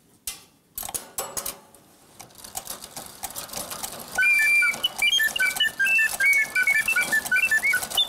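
Antique singing-bird cage clock with automaton birds set going: a few clicks, then its clockwork whirring with fine rapid ticking. About four seconds in, the birds' whistle mechanism starts a loud warbling song of short chirps and pitch slides.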